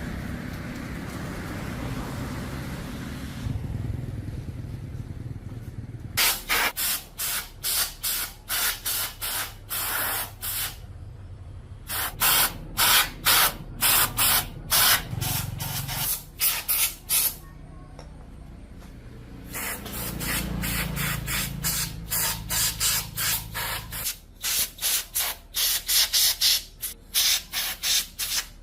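Hand abrasion of a part, rubbing back and forth in regular strokes about two to three a second. There are two long runs of strokes, with a steady hiss for the first few seconds and again between the runs.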